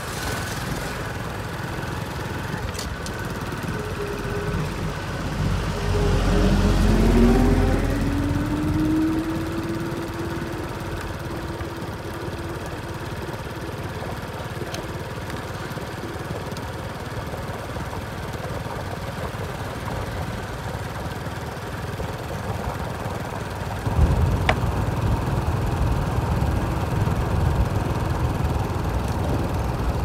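Engines of road-paving machinery and vehicles running steadily, with one engine rising in pitch as it revs up about six seconds in. A louder low rumble starts abruptly near the end.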